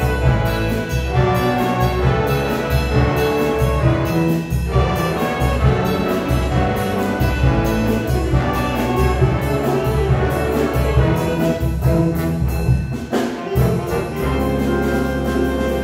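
Jazz big band playing live: saxophone, trombone and trumpet sections in full ensemble over drums, with regular drum and cymbal strokes. The band drops back briefly near the end, then comes in on long held chords.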